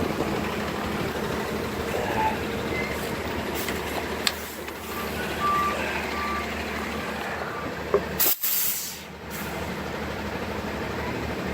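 Steady vehicle and traffic noise, with three short high beeps about five seconds in and a sharp click followed by a brief burst of hiss about eight seconds in.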